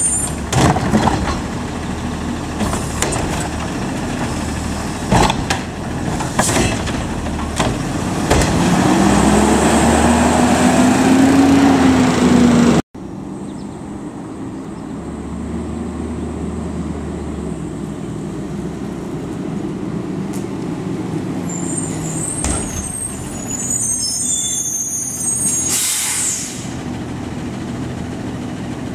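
Autocar ACX garbage truck with a Curotto Can arm dumping carts: a few sharp metal clanks, then the diesel engine revving up under hydraulic load, its pitch rising for a few seconds. After a brief gap the engine runs steadily, and a short air-brake hiss sounds near the end.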